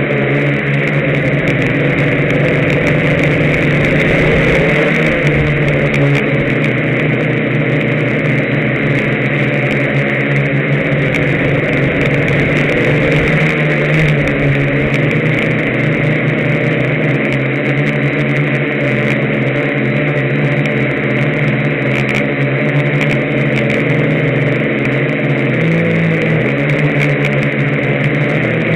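Electric motors and propellers of a Y6 hexacopter in flight, recorded from the camera on board. They make a steady, loud drone of several close tones over a propeller hiss, the pitch shifting slightly as it manoeuvres, with a brief dip and rise in pitch near the end.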